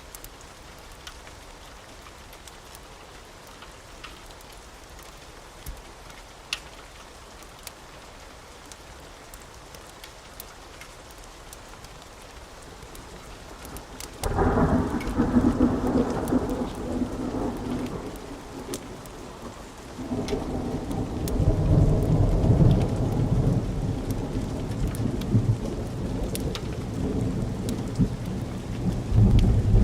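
Steady rain with scattered sharp ticks. About halfway in, thunder breaks in suddenly with a deep rumble that fades over a few seconds. A second, deeper roll of thunder follows and is still rumbling at the end.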